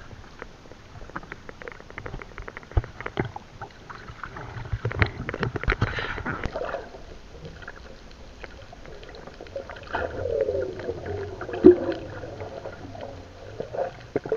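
Seawater splashing and sloshing against a camera at the surface beside an outrigger fishing boat, with many small clicks and slaps. It then turns to muffled underwater gurgling, with a falling, wavering tone and a single knock about two-thirds of the way in.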